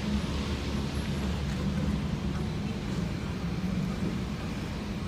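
Steady low rumble of traffic, even throughout with no distinct knocks or events.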